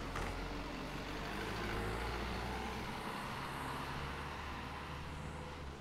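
A road vehicle's engine running steadily, with a swell of noise about two seconds in.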